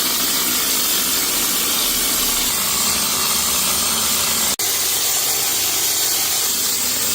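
Compressed-air plaster spray gun spraying textured render onto a wall: a loud, steady hiss of air that starts abruptly and cuts out for an instant about four and a half seconds in.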